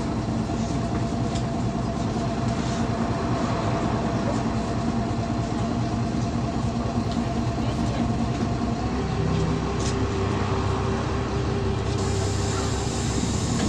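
Cabin sound of a GolAZ-5225 city bus under way: steady engine drone with road noise. About nine seconds in, the engine note changes to a different pitch.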